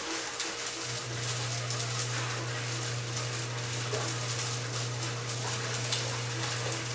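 Caged electric fan running fast, with strips of newspaper tied to its guard fluttering in a rapid crackle. A low steady hum comes in about a second in.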